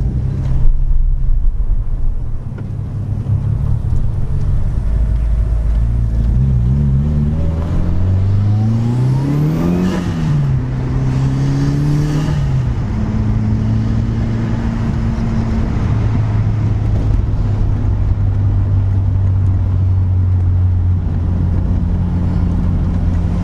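Mitsubishi Lancer Evolution 6.5 Tommi Makinen Edition's turbocharged 4G63 four-cylinder engine pulling away and accelerating. The pitch climbs and drops twice, about ten and twelve seconds in, at the gear changes, then settles to a steady cruise.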